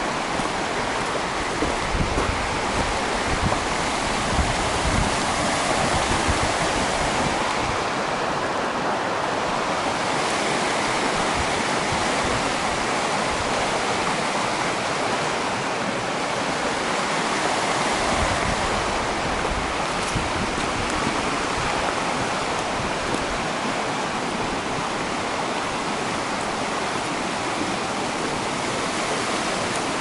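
A steady rush of running water, with irregular low rumbles of wind buffeting the microphone.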